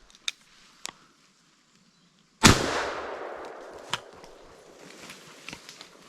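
A single shotgun shot about two and a half seconds in, its report echoing and fading away for several seconds; the shot downs a ruffed grouse. A few light clicks and snaps come before and after it.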